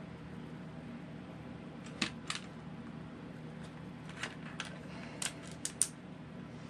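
Small kit parts clicking and clinking against a glass dish as they are picked out by hand: two clicks about two seconds in, then a quicker run of clicks near the end. A low steady hum lies underneath.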